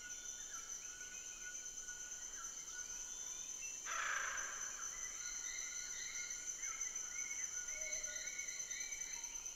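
Evening natural ambience: a steady chorus of high-pitched insects, with short chirping, gliding calls of birds or frogs scattered through it. About four seconds in, a brief rush of noise stands out as the loudest sound.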